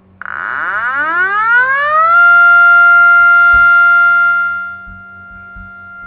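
Synthesized SD-10 siren imitation made in Audacity: a buzzy sawtooth tone winds up in pitch over about two seconds, then holds a steady 696 Hz wail. It turns much quieter about four and a half seconds in.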